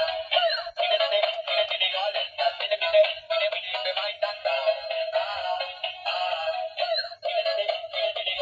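Electronic toy's small built-in speaker playing a synthesized sung children's tune. The sound is thin and tinny, with no bass, and runs as a steady string of short sung notes.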